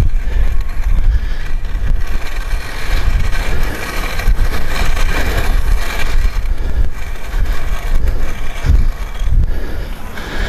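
Gusty wind buffeting the microphone with a heavy, uneven rumble, over a steady scraping hiss from a baseline drag being pushed across the clay infield dirt.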